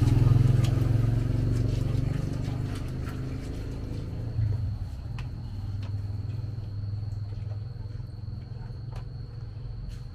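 A motor vehicle's engine hum, loudest at the start and fading away by about four seconds in. After that, a few sharp knocks and scrapes of a stone pestle grinding sauce in a stone mortar, with a faint steady high-pitched tone.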